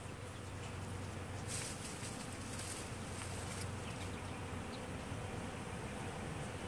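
Hundreds of honeybees buzzing together among the blossoms of a flowering crabapple tree: a steady massed hum, with a short stretch of high hiss from about one and a half to three and a half seconds in.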